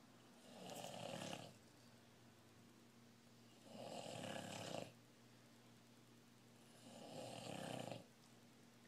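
A sleeping person snoring: three snoring breaths, each a little over a second long, about three seconds apart.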